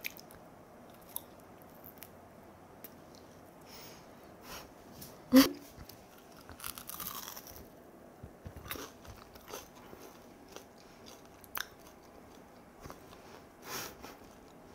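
Someone eating pan-fried rice cake skewers (tteok-kkochi): bites and chewing with crunches of the crisp-fried, sugar-coated rice cake, and a brief 'mm' about five seconds in.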